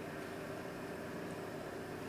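Quiet, steady room tone: a faint hiss with a low hum and no distinct event.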